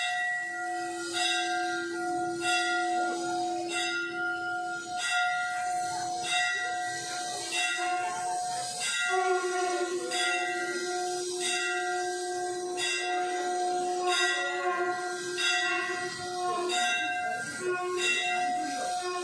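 Temple bells rung over and over, about a stroke a second, each stroke's ringing running into the next.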